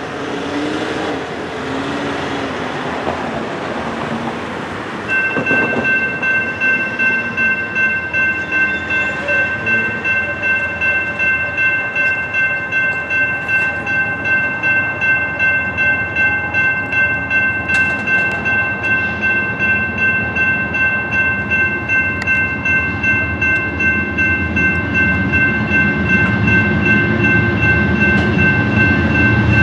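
Street traffic, then about five seconds in a railroad crossing's NEG electronic bell starts ringing, a steady ding about twice a second that runs on under everything. Near the end a low rumble grows under the bell as the BNSF freight train's locomotives approach the crossing.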